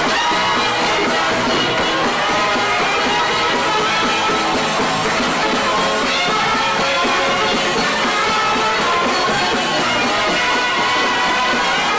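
Small live band playing a tune together on stage, with accordion, clarinet, trombone and double bass.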